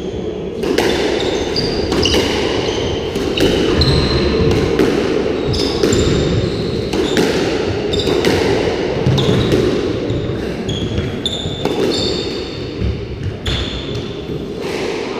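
Squash rally: the ball striking racquets and the court walls again and again at an uneven pace, with short high squeaks of court shoes on the wooden floor, over a steady low hum.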